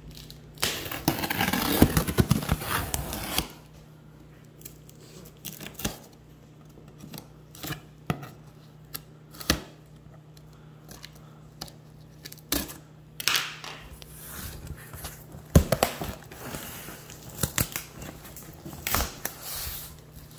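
Knife slicing through packing tape on a cardboard box: a rasping cut of about three seconds early on, followed by scattered knocks, scrapes and short tearing sounds as the box is handled and more tape is cut.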